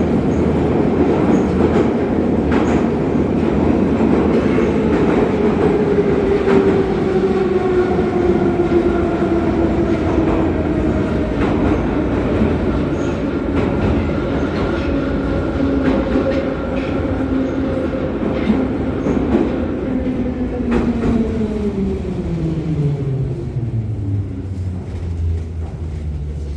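81-717.5P metro car running and braking into a station: the whine of its traction motors falls steadily in pitch, then drops steeply over the last few seconds as the train slows to a stop, over the rumble and clatter of the wheels on the rails.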